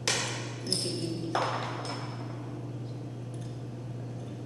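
Kitchenware clinks at a wok: a sharp knock at the start, a short high metallic ping about a second in, then another knock, over a steady low hum.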